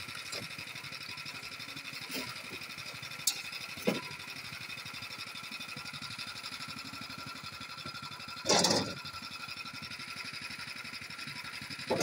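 Concrete block-making machine running, its motor giving a steady hum with a high whine, with a couple of sharp clicks and one brief loud clatter about eight and a half seconds in.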